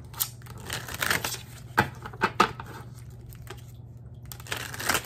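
A tarot deck shuffled by hand: sharp card taps and the rustle of cards sliding against each other in short bursts, the longest about a second in and again near the end, over a faint steady low hum.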